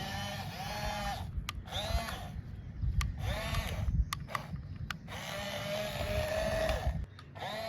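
Small electric motors of an RC toy excavator whining in short bursts, each spinning up and winding down as the arm or cab is worked, with the last run held for about two seconds. Sharp clicks come between some of the bursts.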